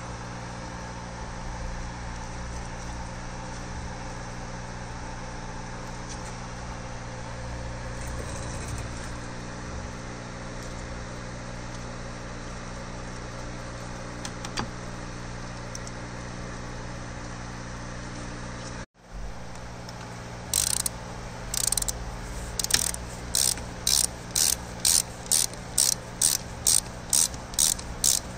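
A steady low hum fills the first two-thirds. After a brief drop-out, a socket ratchet clicks in regular strokes that quicken to about two a second as it runs a bolt into the transmission casing.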